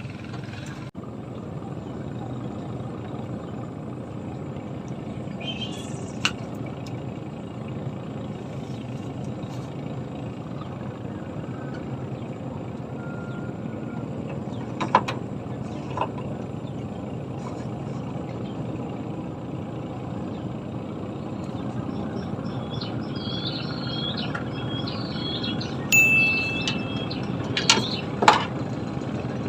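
A steady low rumble with a few sharp clicks, and birds chirping repeatedly in the last several seconds.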